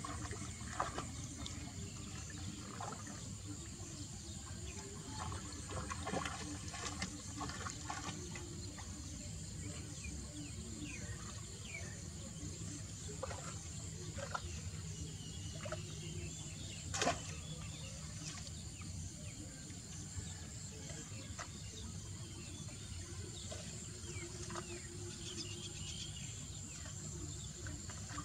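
Rustling and light splashing of dogs pushing through wet, weedy vegetation, with scattered small clicks and snaps and one sharper snap partway through.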